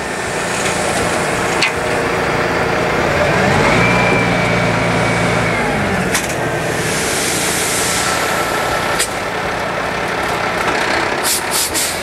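Dump truck's diesel engine running while its raised bed empties a load of dirt, with the sliding dirt adding a steady rush. The engine note rises and falls for a couple of seconds about three seconds in, there is a burst of air hiss around seven seconds, and several sharp knocks, a quick cluster near the end.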